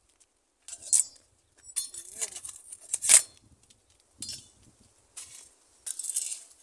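A few short rustling and clinking noises close by, loudest about a second and three seconds in, with a brief murmur of a voice around two seconds in.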